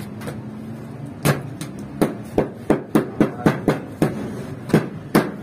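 Bread dough being slapped and patted flat by hand: a quick, irregular run of about a dozen sharp slaps.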